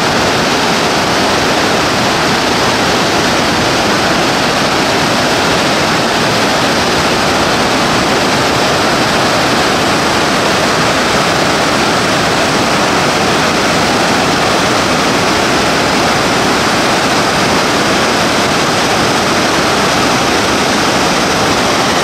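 Fast-flowing white water of the Köprülü River rushing through its rocky canyon, a loud, steady rush with no breaks.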